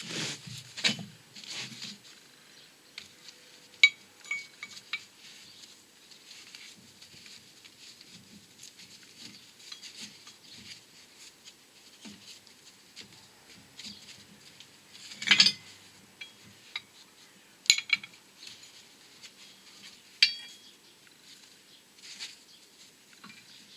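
Scattered metallic clinks and knocks, with one louder scrape about halfway through, as a steel wheel hub and press parts are handled and set in position on a hydraulic shop press.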